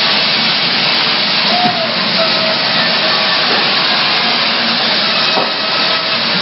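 Sawmill machinery running with a loud, steady rushing noise and a faint whine.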